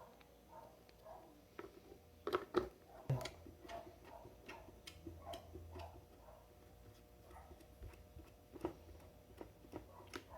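Light plastic clicks and taps of blender parts being handled and fitted back together during reassembly, with a few sharper knocks about two to three seconds in.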